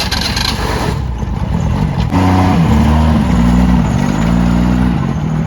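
Tuk-tuk's small engine running and revving as it pulls away, a rushing noise for the first second or so, then a steady engine note whose pitch steps up and down.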